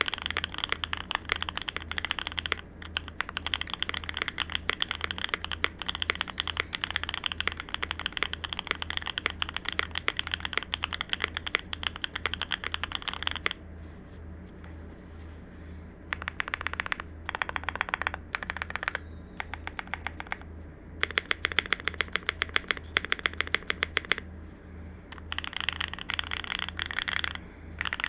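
Fast typing on a CIDOO V65 V2 mechanical keyboard with lubed Akko Cream Yellow V3 linear switches, a polycarbonate plate and ABS doubleshot keycaps. Quick, continuous keystrokes, with a pause of a couple of seconds about halfway through and a few shorter breaks later.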